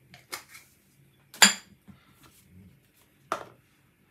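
A few scattered clinks and knocks of spice jars and kitchen things being handled. The loudest, with a brief ring, comes about a second and a half in.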